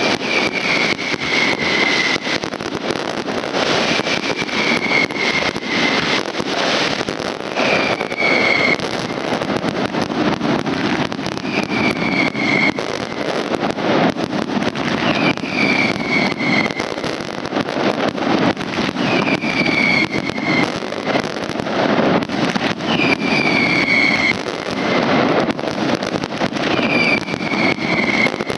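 Aerial fireworks display going off continuously: a dense crackle and popping of bursting shells and rising rockets. A high whistle-like tone, falling slightly in pitch, recurs about every four seconds over the crackle.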